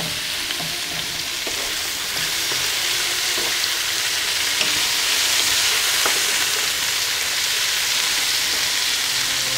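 Sliced zucchini sizzling steadily as it fries in a pan, with a few light taps and scrapes of a wooden spatula turning the slices.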